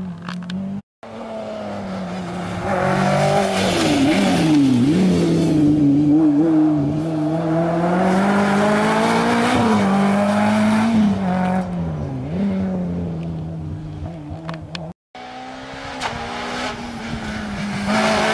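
Rally car engines at full speed on a special stage. A first-generation Renault Clio rally car passes, its revs climbing and dropping sharply through gear changes, loudest in the middle. After an abrupt cut near the end, a Peugeot 206 rally car is heard approaching.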